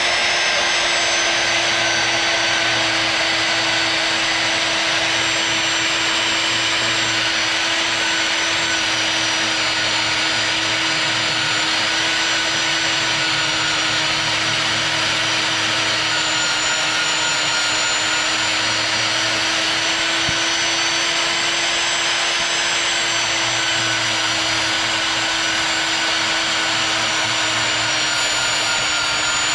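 Vertical metal-cutting band saw running steadily as its blade cuts through the handle of a pneumatic air hammer.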